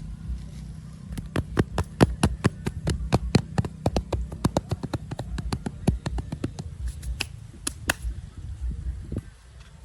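A quick run of sharp taps or knocks, about four a second, over a low steady hum; the knocks stop about eight seconds in.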